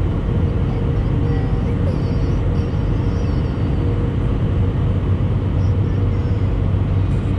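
Steady jet airliner cabin noise in an Airbus A319 descending on approach: a low rumble of the engines and rushing airflow with a faint steady hum.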